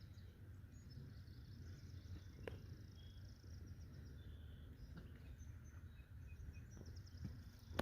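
Faint outdoor ambience: a low steady rumble with scattered faint high bird chirps.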